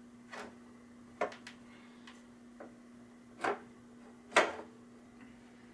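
Irregular sharp clicks and taps of small plastic and metal parts being handled on a workbench, about seven in all, the loudest about four seconds in, over a faint steady hum.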